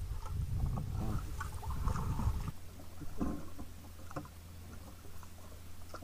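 Water sloshing and gurgling around a sea kayak, with scattered knocks of paddle and hull, over an uneven low rumble. About two and a half seconds in, the sound changes abruptly to a steady low hum with occasional knocks.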